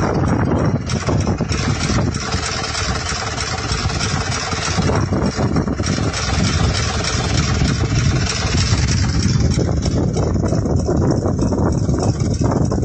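A vehicle's engine running, a steady loud rumble mixed with a dense rushing noise.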